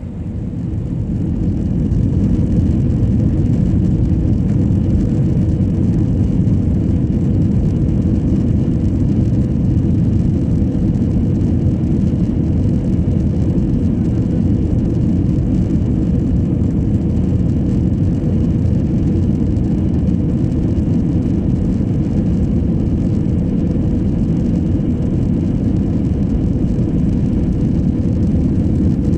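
Airliner's jet engines at takeoff thrust and its wheels rumbling on the runway during the takeoff roll, heard from inside the cabin. A loud, steady low roar with a faint steady hum above it, swelling over the first two seconds and then holding level.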